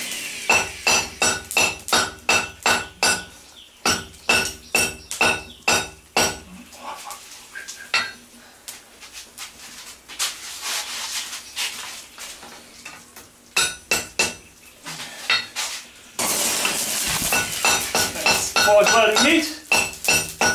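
Hand hammer striking a red-hot forge-welded billet of bicycle parts on an anvil in runs of quick blows, about two or three a second, each with a ringing note from the anvil. The blows drive flux and slag out of the weld. The hammering stops for several seconds in the middle, and a loud hiss takes over shortly before the blows resume near the end.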